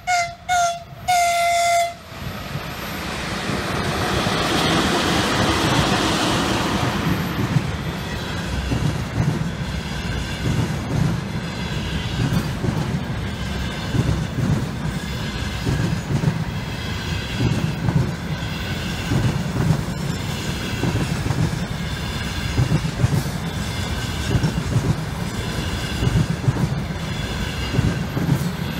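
VL11 electric locomotive's air horn (tifon) gives a couple of short toots and then a longer blast. The locomotive then passes with a rush of noise that builds for a few seconds, and the container train's wagons roll by, wheels clacking over the rail joints in a steady rhythm.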